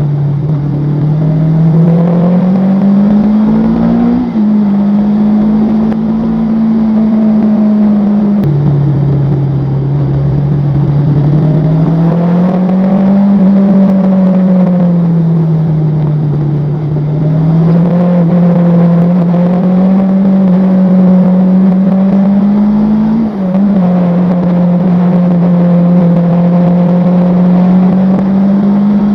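Vehicle engine heard on board during a ride, with its pitch rising and falling as it speeds up and slows. The pitch drops suddenly a few times: about 4 seconds in, about 8 seconds in, and near the end.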